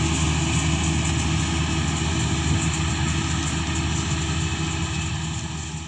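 Kubota DC-35 mini combine harvester running steadily at work, its engine and machinery giving an even drone that begins to fade near the end.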